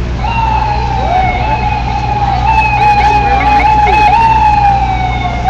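Emergency-vehicle siren sounding one long, slowly falling wail that jumps back up in pitch twice, over a steady low rumble of traffic.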